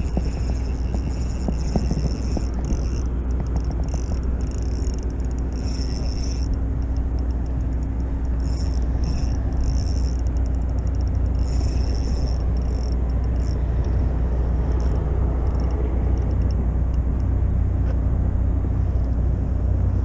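Steady low rumble of motorway traffic on the bridge overhead. A spinning reel is wound in over it, its high whir coming and going in spells of a few seconds through the first two thirds.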